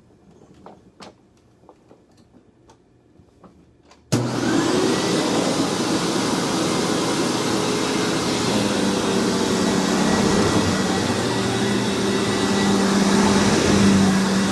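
A few faint clicks, then about four seconds in a Hoover WindTunnel upright vacuum cleaner switches on abruptly and runs steadily, a loud motor rush with a steady whine. This is its first test run after a rebuild.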